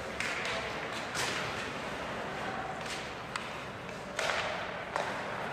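Ice hockey play: a puck and sticks giving about half a dozen sharp knocks and thuds, some echoing briefly in the rink, over a steady arena din.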